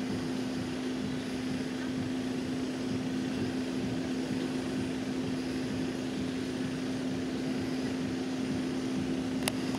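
A steady mechanical hum with one constant low tone over an even background rush, and a single sharp click near the end.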